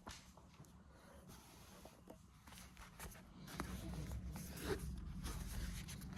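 Hands handling a cardboard card package: faint scraping, rustling and small clicks, getting louder about three and a half seconds in.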